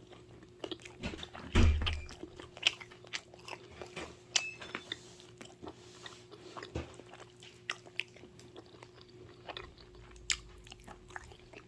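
Close-miked chewing of pizza: scattered wet mouth clicks and smacks, with a louder bite about two seconds in. A faint steady hum runs underneath.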